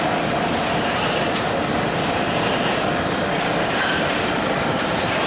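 Line-shaft machine shop running steadily: a 15 hp Fairbanks-Morse Z engine turning the overhead shaft, leather belts and pulleys, and the belted machines together.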